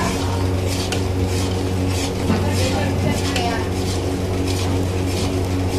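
Metal ladle stirring and scraping a thick, frothing Mysore pak mixture of gram flour, ghee and sugar syrup around a metal kadai, about two to three scrapes a second, over a steady low hum.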